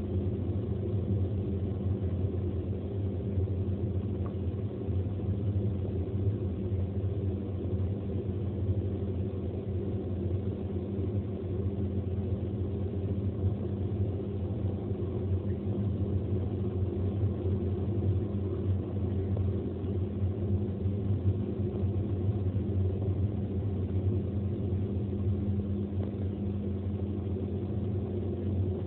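Steady low drone and road rumble of a car cruising at motorway speed, heard inside the cabin, with no change in pace.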